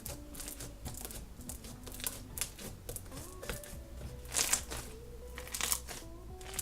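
Slime being squeezed and stretched by hand, making a run of crackling clicks and pops, two of them louder about four and a half and nearly six seconds in, over soft background music.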